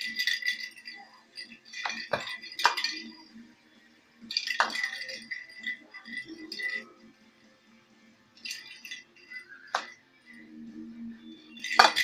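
Hollow plastic rattle ball rattling in about five short bursts, with a few sharp knocks, as a parrot rolls and pushes it across carpet.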